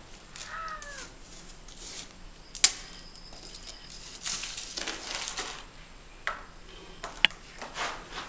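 Footsteps and scuffs on a dirt-and-rubble floor with handheld-camera handling noise. There are two sharp clicks, a denser patch of rustling midway, and a short squeak about half a second in.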